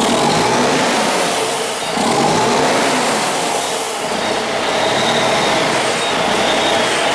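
Freshly overhauled Cummins ISX 15-litre diesel truck engine running, heard from its vertical exhaust stack: a loud, steady drone that dips slightly twice.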